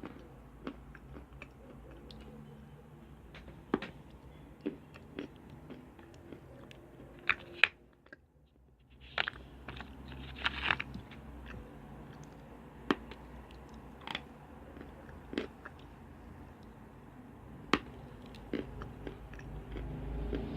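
Someone biting and chewing lumps of chalk: sharp crunches and cracks at irregular intervals, with a brief pause about eight seconds in, over a low steady hum.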